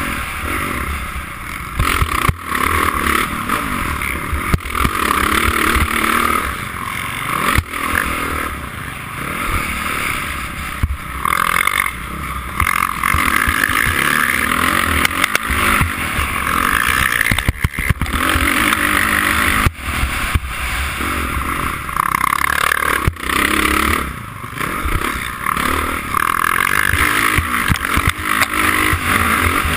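Honda CRF450 dirt bike's single-cylinder four-stroke engine revving up and down through the gears, heard from the rider's helmet with rushing wind. A few sharp knocks cut in along the way.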